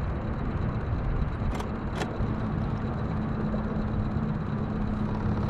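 Electric trolling motor running, a steady low hum under a constant wash of noise, with two short clicks about one and a half and two seconds in.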